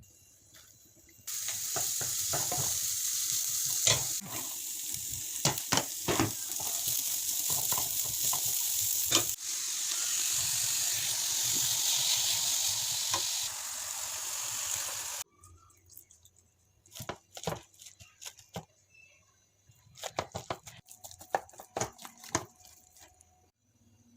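Food frying in a pan: a steady sizzle with the sharp clicks and scrapes of a utensil stirring against the pan. About 15 seconds in the sizzle cuts off abruptly, leaving only scattered clicks and knocks of utensils.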